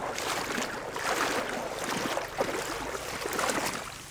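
Irregular sloshing and splashing of water as a person wades through shallow marsh water in waders, step after step, fading somewhat near the end.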